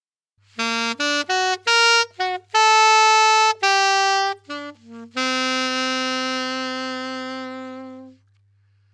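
Stagg alto saxophone playing a quick run of short notes moving up and down, then holding one long low note for about three seconds that fades away. It is a test phrase, an arpeggio and a long note, played to judge the tone of a mouthpiece and ligature setup.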